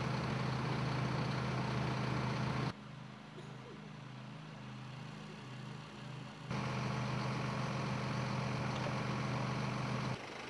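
Fire truck's diesel engine running steadily with a low hum. Between about 3 and 6.5 seconds in it gives way to a quieter engine drone that wavers in pitch, then the loud steady hum returns.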